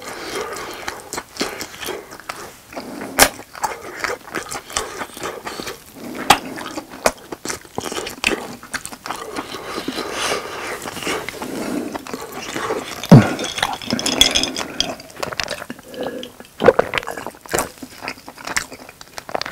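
Close-miked chewing of grilled grilling cheese: a run of wet mouth clicks and smacks.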